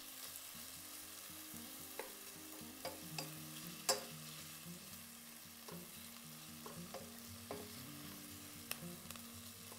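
Sliced onions sizzling steadily in oil and butter over medium heat in a stainless steel sauté pan, stirred with a wooden spatula that gives scattered light clicks and scrapes against the pan, the sharpest about four seconds in.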